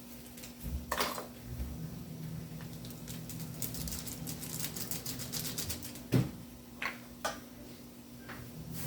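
Kitchen utensils and cookware being handled: scattered knocks and clatter, the loudest about six seconds in, with a run of fine rapid clicking in the middle, over a steady low hum.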